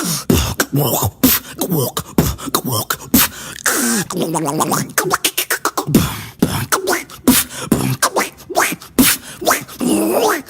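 Beatboxing: one person's mouth making percussive clicks and beats, mixed with pitched, sliding vocal sound effects.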